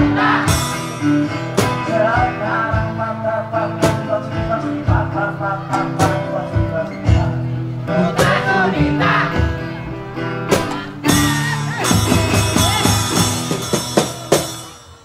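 Live one-man-band music: a strummed acoustic guitar with bass-drum and cymbal hits played by the same performer, with a melody line over it at times. From about eleven seconds in the strikes come thick and fast as the piece closes, and the sound falls away at the very end.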